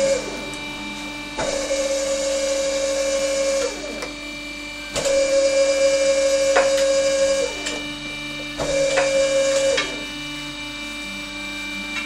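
Truck tyre changer's motor running in repeated bursts of one to two and a half seconds, each a steady whine with a hiss over it, starting and stopping as the machine's controls are worked, with a few sharp clicks and knocks between runs.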